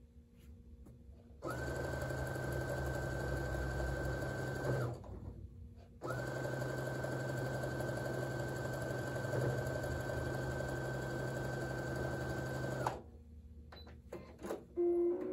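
Brother electric sewing machine stitching a quilt-block seam at a steady speed in two runs: about three seconds, a brief pause, then about seven seconds. A few light clicks follow near the end.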